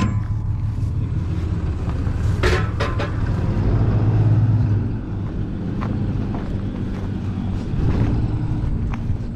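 Vehicle engine running steadily with a low hum, louder for a moment about four seconds in. A sharp metal click right at the start and a short high-pitched squeak about two and a half seconds in.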